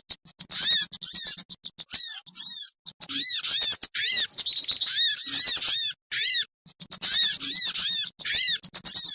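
Bird-lure recording of small songbirds: rapid, high chirping and trilling mixed with repeated arched whistled notes, several birds calling over one another. It breaks off briefly twice.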